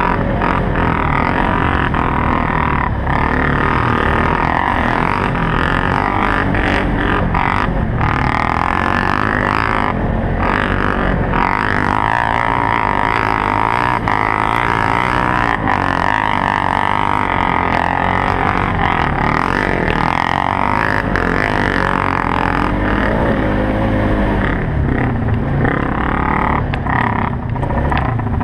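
Polaris Sportsman 570 utility quad's single-cylinder engine running hard under load on a dirt trail, its pitch rising and falling with the throttle.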